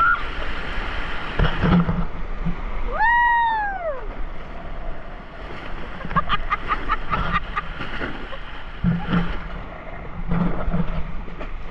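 Whitewater rushing and splashing around a raft running a rapid, with a short high-pitched squeal about three seconds in and a quick run of splashes a few seconds later.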